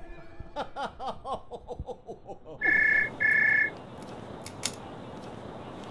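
Mobile phone ringing: a double burst of a steady two-note electronic ring starting about two and a half seconds in. Before it, a quick run of short swooping tones; a single click follows the ring.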